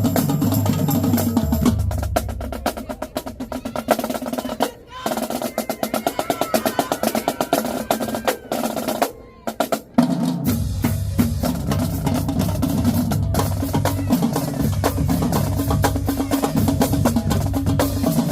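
Marching drumline playing: rapid snare and tenor drum strokes over pounding bass drums. The bass drums drop out about two seconds in, leaving the snares and tenors playing a break with two short stops. The full line with bass drums comes back in about ten seconds in.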